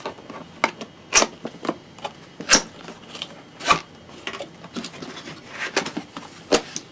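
Cardboard box being opened by hand: irregular scraping and rustling of the top flaps, with about five louder sharp snaps.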